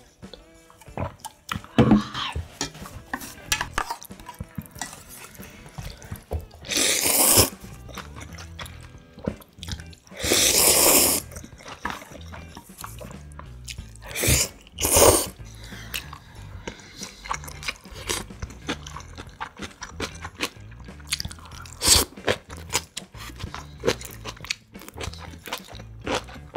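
A person slurping ramyun noodles, with chewing in between. There are four loud slurps, the longest about a second, and many small clicks and mouth sounds between them.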